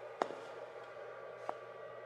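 Two camera shutter clicks, the second softer, about a second and a quarter apart, over a faint steady hum.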